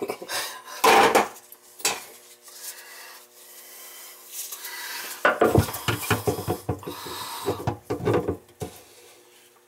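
Pliers working a plastic slip nut on a PVC sink drain trap: metal scraping, rubbing and knocking against plastic pipe. There is one knock about a second in, then a long run of scraping and knocks from about halfway through.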